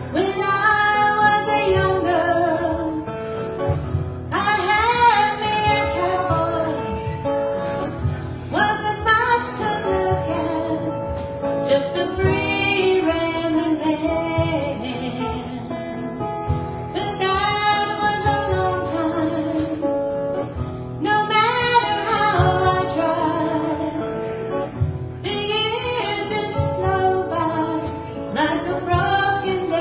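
Live acoustic country-folk song: a woman singing the lead vocal in long phrases, accompanied by a strummed acoustic guitar.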